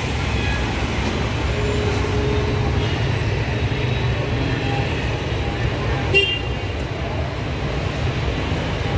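Busy street traffic: a steady low rumble of engines, with a faint horn toot early on and a short, sharp ring or clink about six seconds in.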